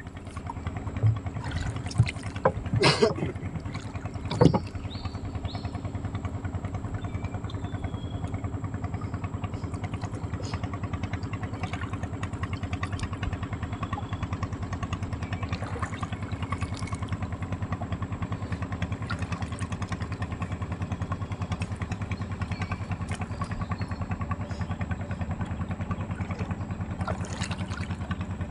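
A small boat engine runs steadily throughout. Several loud knocks come in the first few seconds.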